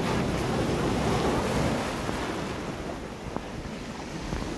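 Ocean surf breaking and washing over shoreline rocks, louder in the first couple of seconds and easing after, with wind buffeting the microphone.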